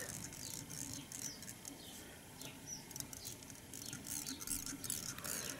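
Faint scattered ticks and light scratching from tying thread being wrapped around a hook shank held in a fly-tying vise.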